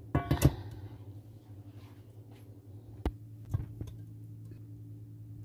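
Stainless steel saucepan knocked down onto a glass-ceramic cooktop: a quick clatter of several knocks with a brief metallic ring at the start. Two single light knocks follow about three seconds in, over a steady low hum.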